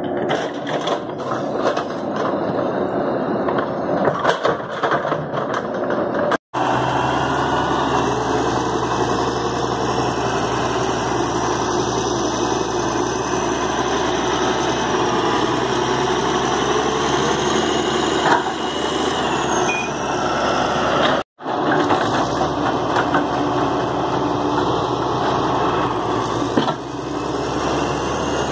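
Diesel engines of a Caterpillar D6D crawler dozer and a JCB 130 tracked excavator running steadily under load while the excavator works to free the dozer, which is stuck in mud. A few sharp knocks are heard, and the sound drops out twice for a moment.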